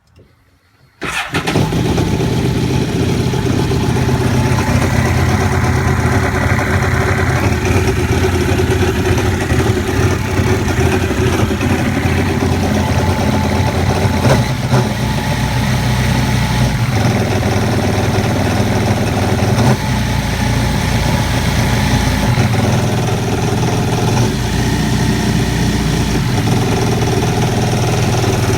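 Honda Aquatrax F-12X jet ski's turbocharged four-stroke engine starting about a second in, then idling steadily. It carries a weird noise at idle that the owner has not yet traced, and which he says goes away with a little throttle.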